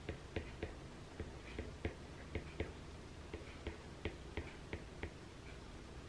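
Apple Pencil tip tapping and writing on an iPad's glass screen: faint, irregular clicks, a few a second.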